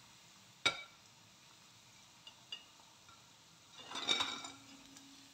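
A steel ladle clinks once against an iron kadhai about half a second in, followed by a couple of faint ticks. About four seconds in comes a short burst of scraping and sizzling as the ladle goes into the hot frying oil to lift out the pakoras.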